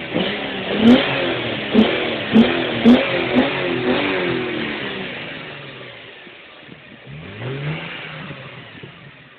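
Nissan 350Z's 3.5-litre V6 revved in a quick series of throttle blips: the revs rise and drop about six times in the first four seconds, then settle back, with one slower rev and fall near the end.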